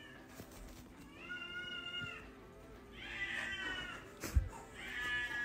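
A cat meowing three times, each a drawn-out call lasting about a second, with a single sharp thump between the second and third meow.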